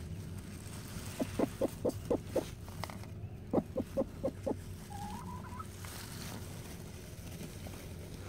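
Broody bantam hen clucking in two quick runs of short clucks, about five each, then one brief wavering higher call. This is a sitting hen protesting as a hand disturbs her on the nest.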